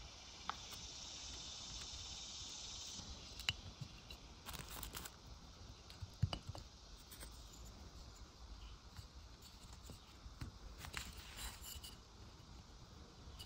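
Faint handling of small wooden parts: a few sharp clicks and short scrapes as wooden dowel pegs are set into drilled holes and a wooden block is pressed down over them, with a faint hiss in the first few seconds.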